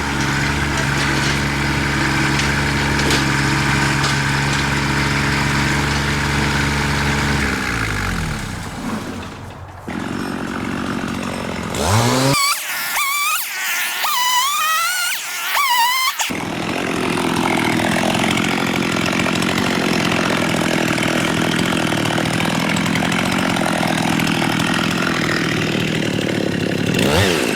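Kubota BX23 compact tractor's diesel engine running steadily, then slowing and dying away about eight seconds in. Later a second engine runs with a wavering pitch.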